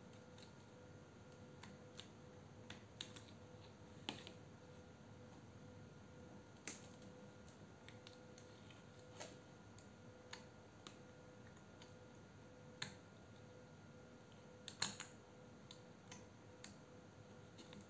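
Scattered small clicks and taps from hands working the plastic battery housing of a cordless drill and its test wires, over near silence with a faint steady hum; the loudest cluster of clicks comes near the end.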